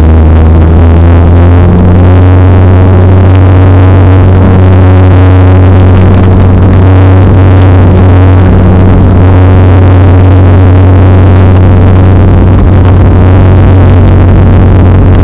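Twin General Electric CT7 turboprop engines and propellers of a Saab 340A running, heard loud from the cabin beside the engine nacelle: a deep, steady propeller drone with a constant hum beneath, as the airliner rolls along the runway before lift-off.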